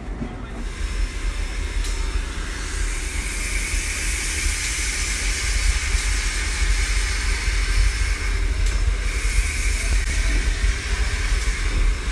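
Narrow-gauge steam locomotive close by, hissing steam steadily, louder from about two seconds in, over a low rumble.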